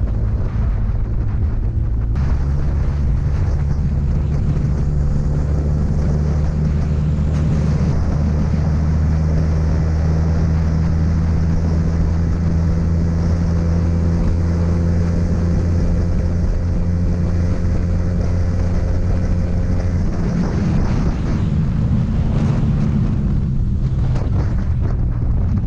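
Motorcycle engine running at a steady cruise, with wind rushing over the microphone. The engine note changes about 20 seconds in and settles again near the end.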